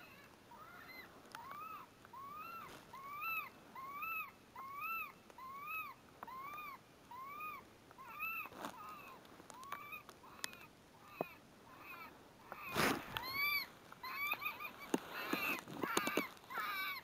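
Electronic predator call playing a looped animal distress sound: a steady string of short rising-and-falling squeals, about one every second. Near the end the squealing gets louder and more jumbled, with a sharp knock just before it.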